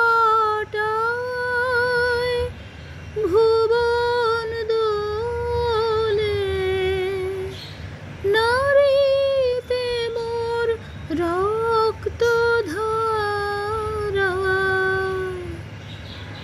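A high female voice singing unaccompanied, holding long notes with a slight waver, in phrases broken by short pauses and with no clear words.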